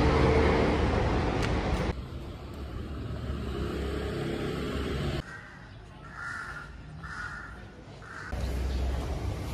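Street traffic noise that drops away suddenly about two seconds in. A crow then caws three times, about six to eight seconds in, and the low traffic rumble comes back near the end.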